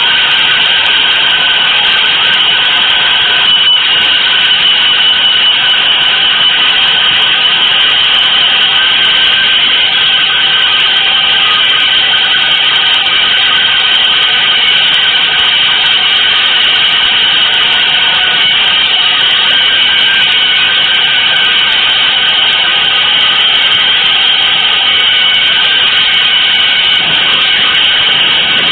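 A dense, steady, hissing noise texture from an avant-garde electronic composition, loud and unbroken, with no beat or clear pitch.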